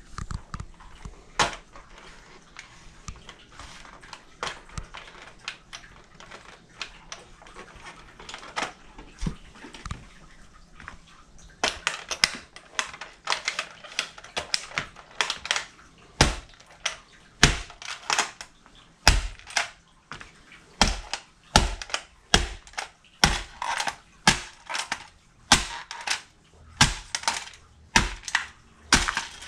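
La Sportiva hiking boots stomping on an old plastic portable radio, cracking and crushing its casing. The impacts are light and scattered at first, then from about twelve seconds in they come hard and loud, about one or two a second, as the radio breaks apart.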